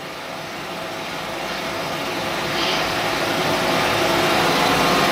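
A steady rushing noise with a faint hum, engine-like, growing gradually louder.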